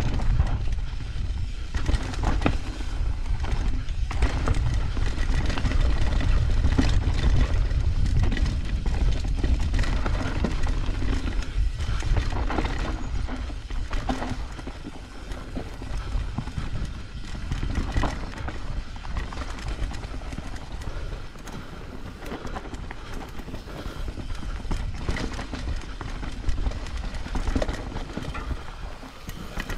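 A Trek Slash 8 mountain bike riding down a rough dirt singletrack: tyres running over the dirt, and frame, chain and suspension clattering over roots and rocks. Low wind rumble on the microphone eases off about halfway through.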